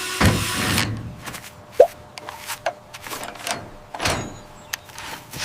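Cartoon sound effects: a whoosh in the first second, then a short sharp squeak and several light clicks and swishes.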